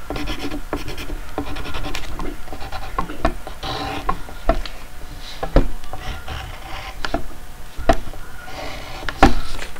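Drawing strokes on paper: a pen or pencil tip scratching and rubbing across the page in short runs, with a handful of sharp knocks as it is set down or bumps the table.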